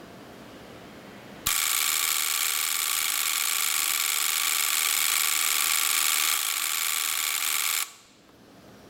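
Three 5 V HLS-14F3L relays wired as a ring oscillator, chattering so rapidly that their contacts make a steady harsh buzz. It starts suddenly with a click about one and a half seconds in and cuts off abruptly near the end, when the power is switched off.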